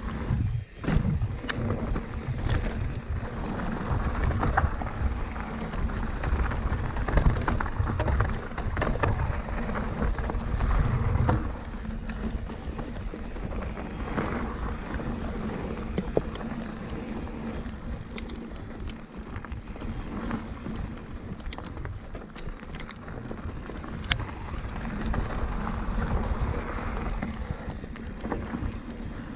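Mountain bike ride on dirt singletrack: wind buffeting the microphone and tyres rolling over dirt, with many scattered sharp clicks and rattles from the bike. The rumble is heavier in the first dozen seconds, then eases.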